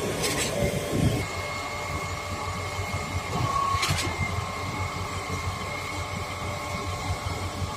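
Sany 47-metre truck-mounted concrete pump running: a steady low engine rumble with a constant high whine over it, and a sharp knock twice, about four seconds apart.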